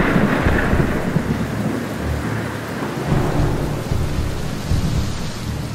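Heavy rain falling with thunder rumbling in low, uneven rolls.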